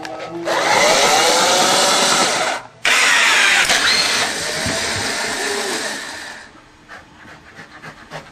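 Automatic dog ball launcher's electric motor whirring loudly, cutting out for a moment under a third of the way in, then running again for a few seconds before dying away.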